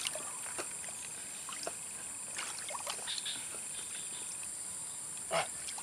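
Faint sloshing and small splashes of muddy ditch water as hands grope under the bank for fish, with a few scattered small ticks over a steady high hiss.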